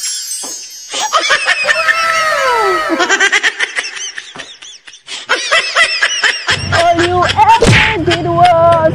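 Several people laughing and giggling in high voices, mixed with bits of chatter.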